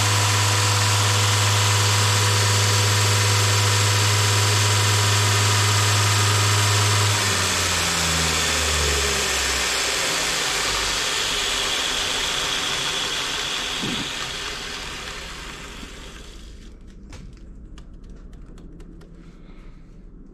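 Norse 2x42 knife belt grinder running at steady speed with a strong hum, on a test run after a new platen has been fitted. About seven seconds in it is switched off: the motor's pitch falls as it coasts down and the belt noise fades out over several seconds, leaving a few faint clicks near the end.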